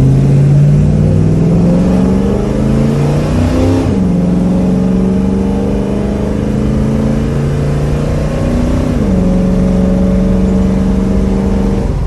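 Ford 302 small-block V8 in a Mercury Cougar accelerating hard through an automatic transmission: the engine note climbs steadily, drops sharply at an upshift about four seconds in, climbs again, and drops at a second upshift about nine seconds in. The engine is running with its ignition timing pulled back to 35 degrees and the carburettor spacer removed.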